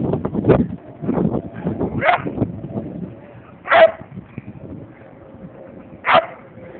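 A dog barking at its own reflection in a mirror: single sharp barks a second or two apart, about four in all.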